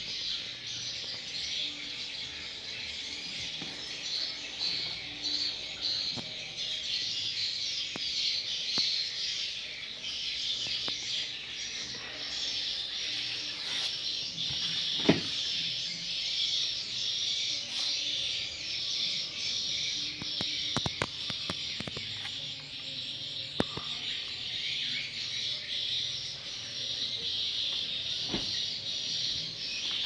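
Steady, dense chorus of high-pitched chirping, with a few sharp clicks and knocks over it; the loudest knock comes about fifteen seconds in, around when the freezer door is opened.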